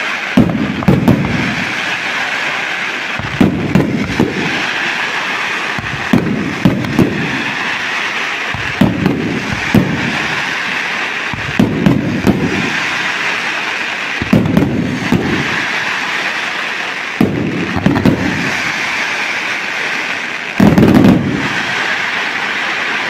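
Aerial fireworks display: shells bursting in quick succession, a booming report every second or two over continuous crackling. A heavier, denser cluster of reports comes near the end.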